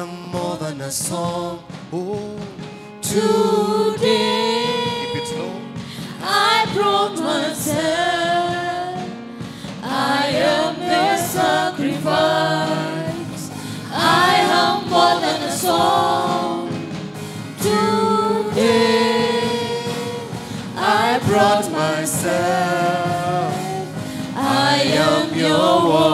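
A slow gospel worship song: singing voices in long held phrases over musical accompaniment.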